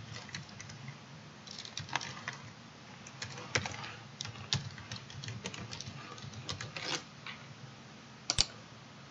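Typing on a computer keyboard: irregular key clicks for about seven seconds, then a sharper double click near the end.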